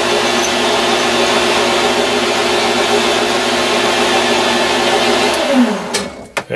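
Grizzly G0602 metal lathe running steadily with a steady motor hum while a quarter-inch twist drill in the tailstock chuck bores the centre hole. About five and a half seconds in, the lathe is switched off and the motor winds down, its hum falling in pitch, followed by a few clicks.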